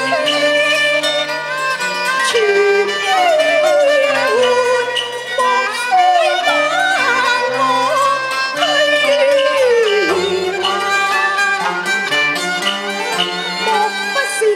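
Cantonese opera music: a traditional Chinese ensemble with bowed strings carrying a sliding melody over lower held notes.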